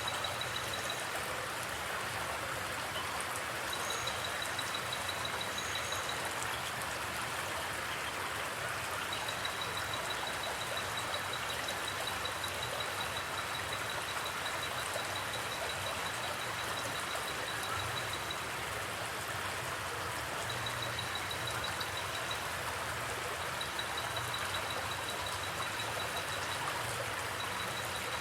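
Forest creek water flowing steadily, an even rushing hiss with no breaks. A faint, rapid, high-pitched pulsing comes and goes over it several times.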